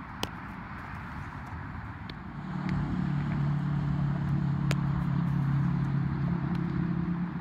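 A motor vehicle engine running with a steady low hum that comes in about two and a half seconds in and eases off near the end, over outdoor background noise. A sharp knock sounds just after the start, with a few lighter ticks later.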